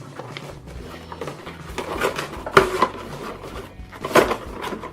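A toy toaster being unboxed: cardboard packaging and plastic parts rustling and knocking, with several sharp clacks, the loudest about two and a half and four seconds in.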